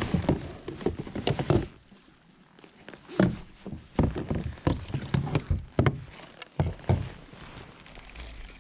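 Irregular knocks and thumps of gear being handled in a kayak, in two runs: through the first second and a half, then again from about three seconds in until about seven.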